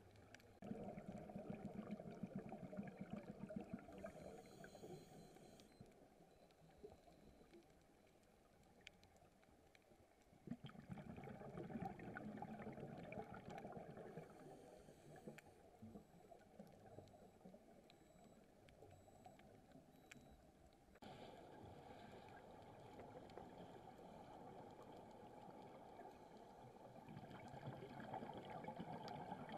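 Faint, muffled underwater water noise, a gurgling rush that swells about a second in, again around ten seconds in, and steadily from about twenty seconds on.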